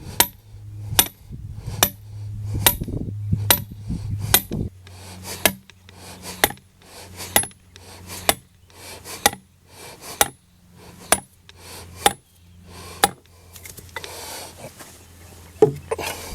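Hammer blows driving a metal stake into the ground for a gate stop, about one ringing metallic strike a second, stopping after about thirteen seconds with two more blows near the end.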